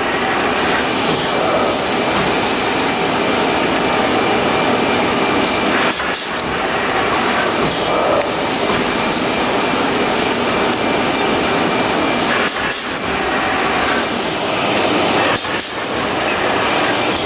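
NAVONA automatic shopper-bag making machine running: a loud, steady mechanical noise from its conveyors and folding-gluing stations, with a brief sharp sound every few seconds.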